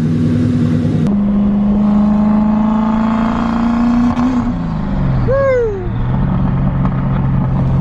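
Turbocharged Ford Crown Victoria V8 running at a steady fast idle, then settling to a lower idle about four and a half seconds in.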